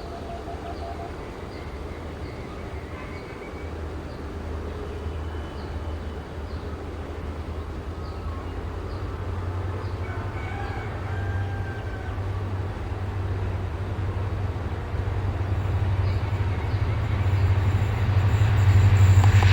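The EMD two-stroke diesel engines of twin WDP-4B locomotives running as the train approaches slowly, a low steady engine drone growing steadily louder.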